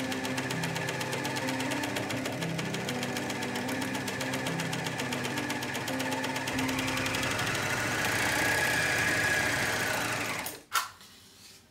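Overlocker (serger) stitching at speed along the top edge of a corset, its knife trimming the edge, with a rapid, even chatter of needle strokes. It stops about ten and a half seconds in, and a single sharp click follows.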